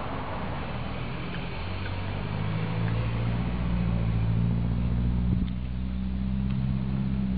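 Domestic cat purring close up, a steady low rumble that swells about two seconds in.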